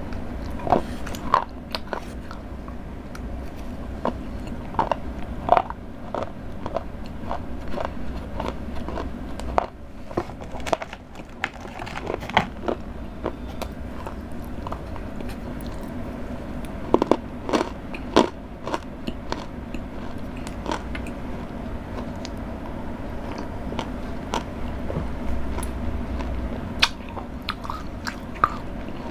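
Close-miked biting and chewing of Cadbury Dairy Milk chocolate: irregular crisp snaps and crunches with chewing in between, and a burst of louder snaps a little past the middle.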